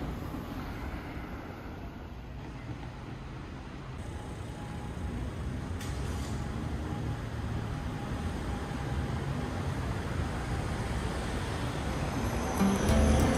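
Steady street traffic noise, a low rumble that grows louder through the middle. Background music comes in near the end.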